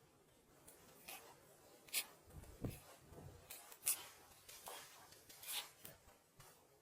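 Faint handwork noises: irregular scraping and rubbing with a few sharp clicks or taps and a soft low thump about two and a half seconds in.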